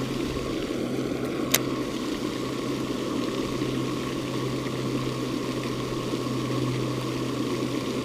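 A steady low mechanical hum with a faint higher whine over it, and a single sharp click about a second and a half in.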